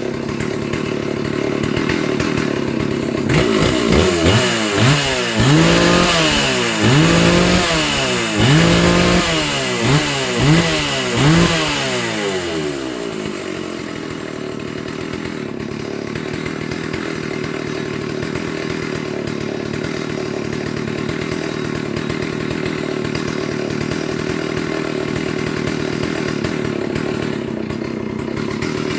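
Stihl 038 two-stroke chainsaw running, its throttle blipped in a series of quick revs, each rising and falling back, from a few seconds in. It then settles to a steady idle for the rest.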